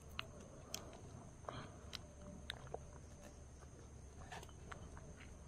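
Faint, scattered light clicks and taps of small clay oil lamps (diyas) being handled as oil is poured into them from a small bottle.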